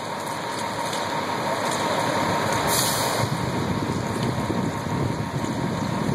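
Fire truck's engine running steadily under a wash of noise, with a brief hiss about three seconds in.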